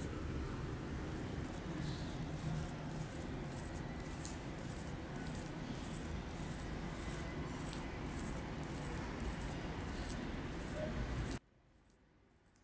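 Fingertips rubbing and pinching the skin of a man's face during a facial massage: soft swishes about twice a second over steady room noise. The sound cuts out suddenly near the end, leaving near silence.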